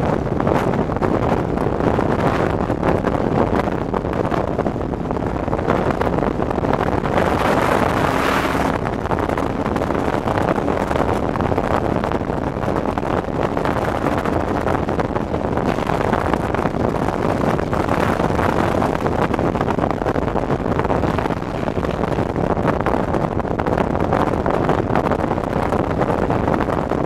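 Steady rush of wind over the microphone of a motorcycle riding at road speed, with the engine and road noise blended underneath.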